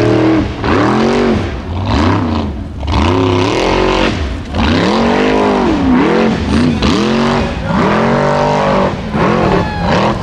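Formula Offroad buggy's engine revving hard in repeated surges, its pitch rising and falling again and again as the buggy claws up a steep dirt bank with its wheels spinning.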